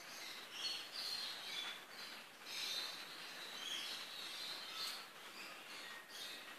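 Caged pet birds chirping and chattering, many short high chirps overlapping, over a faint steady background hiss.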